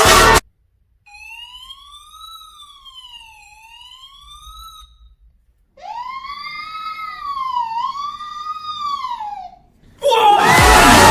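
A siren wail whose pitch rises and falls twice, followed after a short pause by a person's vocal imitation of the siren, a wavering rise-and-fall.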